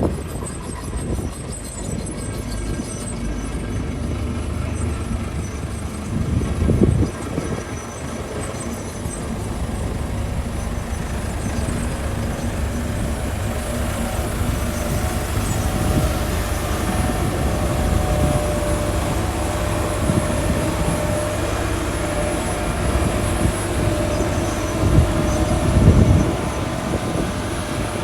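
Heavy diesel construction machinery running steadily, a low rumble with two brief louder surges, about a quarter of the way in and again near the end.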